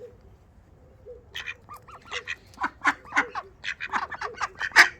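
Ducks quacking in a quick run of short calls, about four or five a second, starting about a second in and getting louder toward the end.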